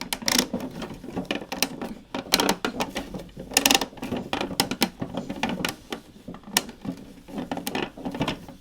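Hard plastic model-kit parts being handled and pressed together: a busy, irregular run of sharp clicks and knocks.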